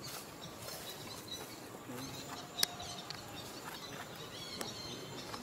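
Faint outdoor ambience with scattered short, high chirps and a sharp click about two and a half seconds in.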